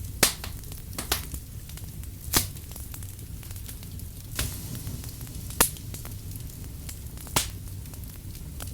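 Firewood burning: a wood fire crackling, with half a dozen sharp pops at uneven intervals over a low steady rumble.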